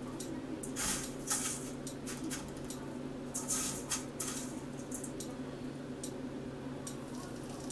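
Hands turning and pressing a lobster cake in panko breadcrumbs in a stainless steel bowl: a run of short, crisp crumb rustles and crunches, scattered irregularly.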